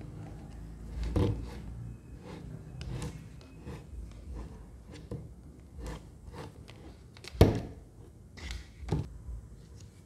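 Small plastic humidifiers and night lamps being handled and set down on a tabletop: scattered knocks and light clatter, with the loudest bump about seven and a half seconds in.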